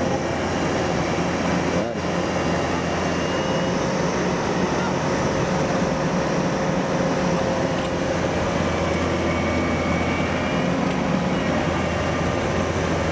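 Diesel engine of a tracked rice combine harvester running steadily under load, with a constant low drone.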